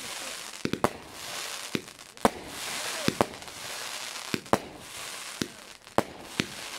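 A fireworks battery firing shot after shot: about a dozen sharp bangs, irregularly spaced, some in quick pairs, as shells launch and burst into white crackling stars, with a crackling hiss between the bangs.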